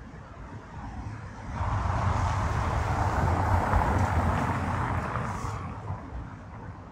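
A motor vehicle passing by: a rushing noise with a low rumble that swells about a second and a half in and fades away near the end.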